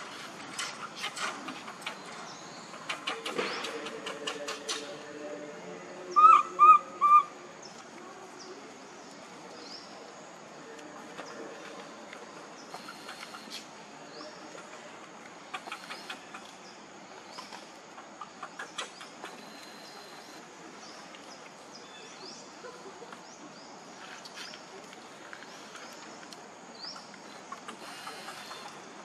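Baby macaque crying in a tantrum: low whimpering cries amid rustling at first, then three short, loud cries about six seconds in. Afterwards only a quiet background with scattered faint chirps.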